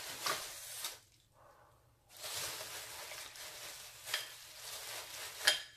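Plastic oven bag crinkling and rustling as hands pull it open, with a short pause about a second in and a couple of sharper crackles near the end.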